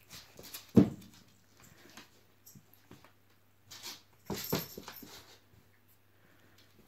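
A Maine Coon cat pouncing and scrambling on a wooden floor after a wand toy: one heavy thump about a second in, then a burst of skittering and scuffling about four seconds in.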